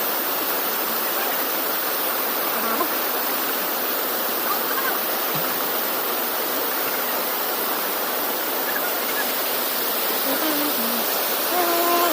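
Steady rushing of river water, an even hiss of flowing current.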